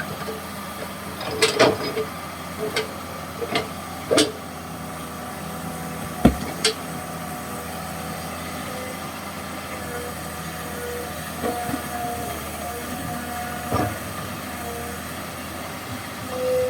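Komatsu PC200-6 excavator running steadily while it works, with a cluster of sharp metallic knocks in the first seven seconds and another near fourteen seconds.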